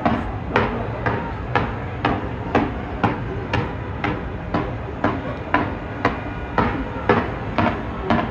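Fireworks going off in a fast, even series of sharp bangs, about two a second, over a steady low rumble.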